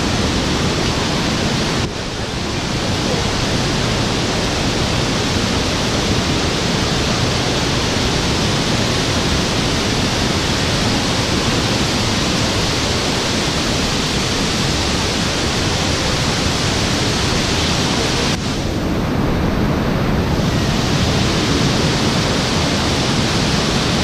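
Steady loud rush of a mountain waterfall cascading over boulders, briefly muffled about three-quarters of the way through.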